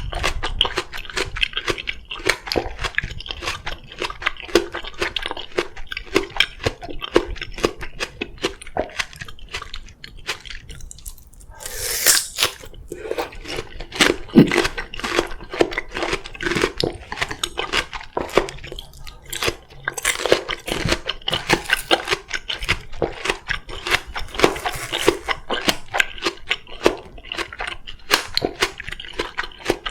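Close-miked chewing and crunching of crisp oriental melon (chamoe), many wet crunchy clicks in quick succession, with a louder, hissier burst about twelve seconds in.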